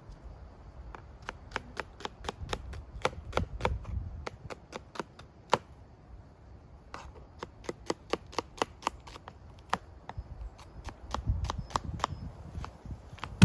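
Knife chopping vegetables: a run of sharp, irregular knocks, a few a second, as the blade strikes the cutting surface.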